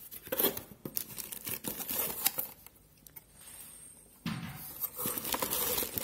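Plastic packaging crinkling and cardboard rustling as a wrapped part is handled and lifted out of a cardboard box. There are two spells of handling with a short lull between them.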